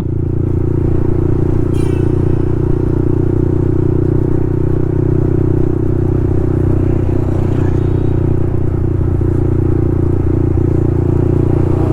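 Yamaha MT-15's 155 cc single-cylinder engine through an aftermarket Akrapovic full-system exhaust, running at a steady, unchanging engine speed while riding. The exhaust note is very loud.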